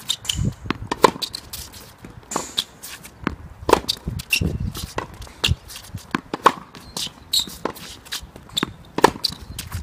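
Tennis ball being hit back and forth: sharp pops of racket strings striking the ball, with ball bounces in between, coming irregularly several times a second.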